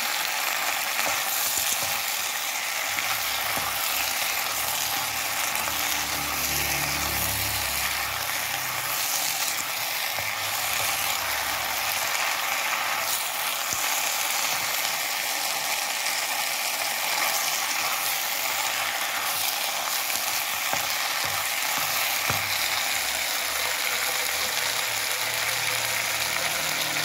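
Macaroni and sliced beef frying in a pan, sizzling steadily while being stirred.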